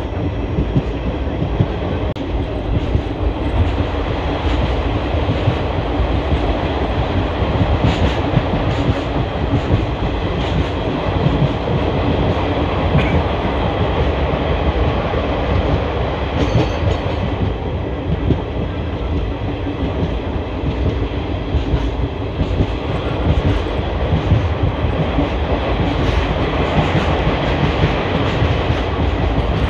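Indian Railways ICF passenger coach running along the track through a ghat section: a steady rumble of wheels and bogie with frequent clicks and knocks.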